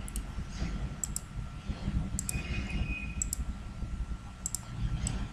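Computer mouse button clicking: about five pairs of sharp clicks, roughly one pair a second, over a low steady background hum.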